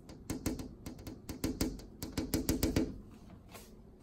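A fingertip tapping on a window's glass pane: a rapid run of light taps, several a second, each with a short ringing tone from the glass, stopping about three seconds in.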